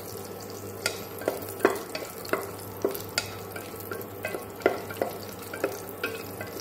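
Wooden spatula stirring whole spices frying in ghee in an aluminium pressure cooker, knocking and scraping against the pot about twice a second.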